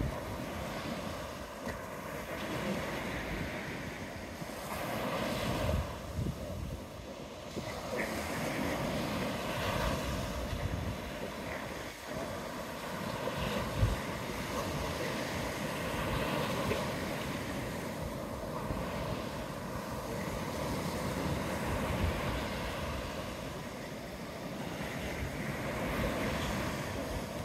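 Sea waves breaking and washing up the beach, the surf swelling and fading every few seconds, with wind rumbling on the microphone.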